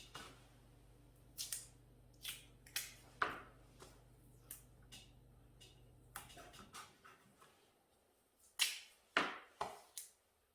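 Paper masking tape being pulled off the roll and torn off in a series of short, sharp rips, the loudest ones near the end. A low steady hum stops about two-thirds of the way in.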